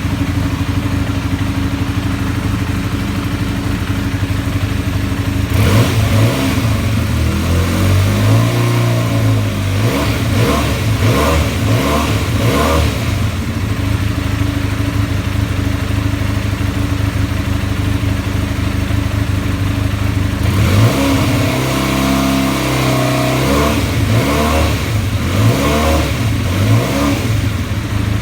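Benelli BN302's 300cc parallel-twin engine idling from a cold start, revved up and down in a series of throttle blips about six seconds in and again about twenty seconds in, settling back to idle between them.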